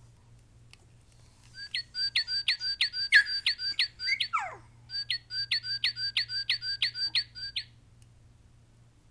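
Northern cardinal song played by a plush cardinal toy: clear whistled notes, each sliding down in pitch, repeated about four times a second in two runs with a short break between them.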